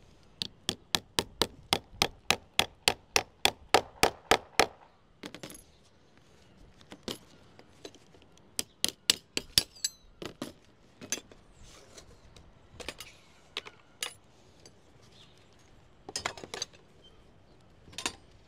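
Hammer strikes: a quick steady run of about four blows a second for the first four seconds or so, then scattered single blows and short pairs, as a piece of lead capping is fixed in place.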